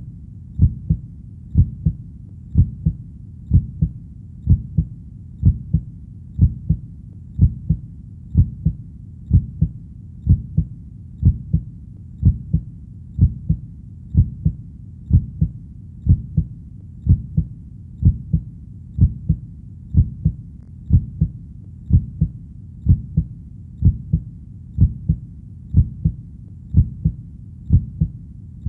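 Heartbeat: a steady double beat (lub-dub) about once a second, low-pitched, over a constant low rumble.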